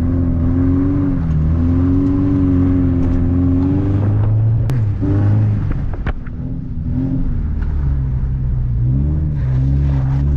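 Subaru WRX flat-four engine running under load, its revs rising and falling, dropping off about four seconds in and climbing again near the end, with a few sharp knocks. The owner calls the engine's sound piston slap.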